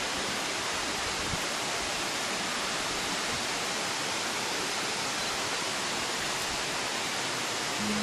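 Tall waterfall's steady, even rush of falling water.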